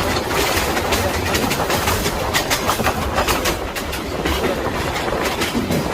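Moving train running on the rails: a steady low rumble with irregular clattering of the wheels over the track.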